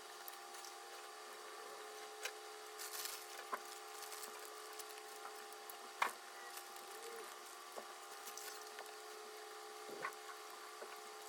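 Faint mouth sounds of someone chewing a hard, very chewy raspberry sweet: scattered soft clicks and smacks, the loudest about six seconds in, over a steady background hum.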